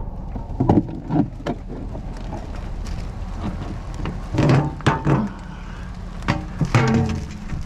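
Knocks and clatter of items being picked up and handled, several separate hits, the loudest around the middle and near the end, over a steady low rumble.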